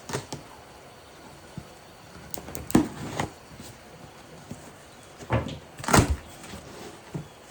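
A cardboard box and its packaging being handled and opened: short scraping and rustling sounds in two bursts, about three seconds in and again about six seconds in.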